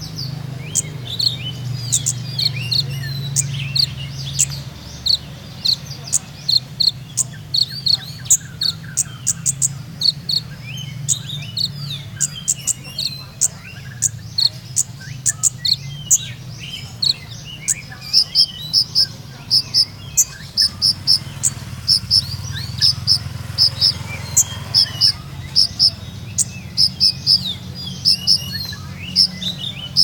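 Caged male sunbird (kolibri ninja) singing: runs of short, high, quick chirping notes, several a second, that grow denser and louder in the second half, over a steady low hum.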